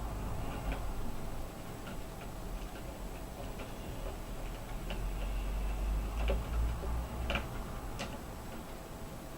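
Light, irregular clicks and taps of plastic laptop parts being handled and fitted, as the cooling fan is seated over the heatsink, with a low rumble of handling.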